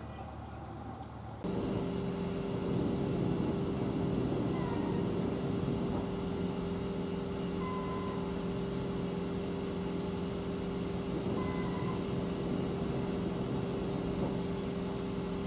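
Diesel engine of a moored crane work ship running steadily at a constant pitch. It cuts in suddenly about a second and a half in, over a lower background rumble.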